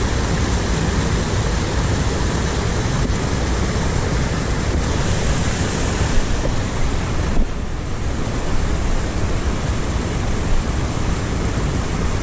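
Waterfall on a mountain stream, a steady loud rush of falling water, thinning briefly about seven and a half seconds in.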